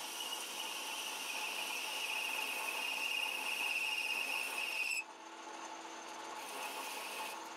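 Metal lathe taking a cut on a turned metal part, with a steady high-pitched whine from the cut that grows slightly louder and then cuts off suddenly about five seconds in, leaving a fainter steady machine sound.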